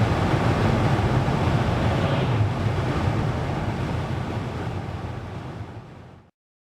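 Steady road and tyre noise with a low engine rumble, heard from inside a moving car; it fades over the last two seconds and cuts to silence near the end.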